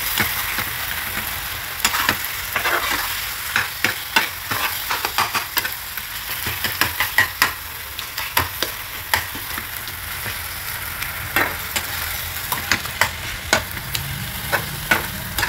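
A spatula stirring and scraping mashed roasted brinjal as it is sautéed in oil in a frying pan: a steady sizzle with frequent, irregular clicks of the spatula against the pan.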